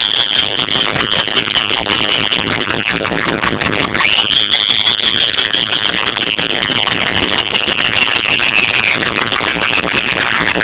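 Electronic music over a large festival sound system mixed with fireworks crackling and popping, recorded loud and distorted. A high tone rises about four seconds in and slowly falls away.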